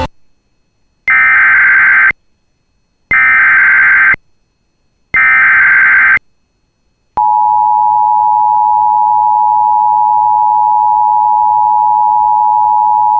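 Emergency Alert System header: three one-second bursts of digital data tones with a second's gap between them, then the steady two-tone attention signal starting about seven seconds in. The signal announces a new severe thunderstorm warning.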